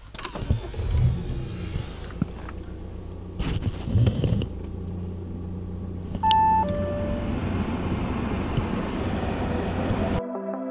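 Car engine starting by push button, then idling steadily. A short two-note dashboard chime sounds about six seconds in.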